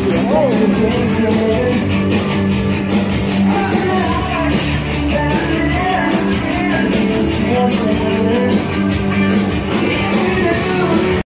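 Background music: a song with a singing voice over a steady beat, cutting off suddenly at the very end.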